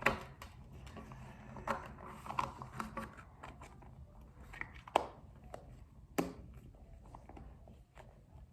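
Glittery slime being handled and pressed back into its container: scattered soft sticky clicks and crackles, with sharper snaps at the start and about five and six seconds in.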